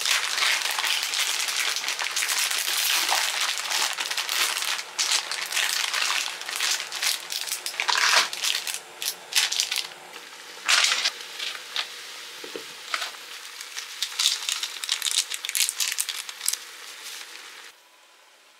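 Plastic instant-noodle packaging crinkling and rustling as it is handled and squeezed, with sharper crackles here and there; the noodle packet and its soup sachets. It stops abruptly near the end.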